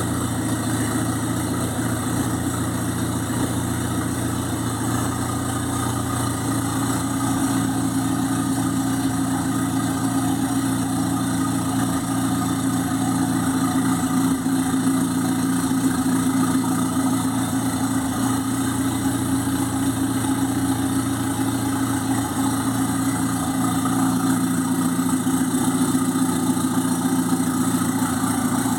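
Turbocharged Fiat 147 engine idling steadily, with no revving.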